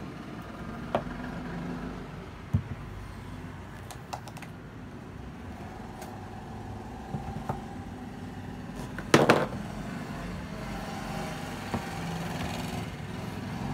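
A box and a laptop being moved about and set down on a wooden desk: scattered light knocks and taps, with a louder clatter about nine seconds in, over a low steady background hum.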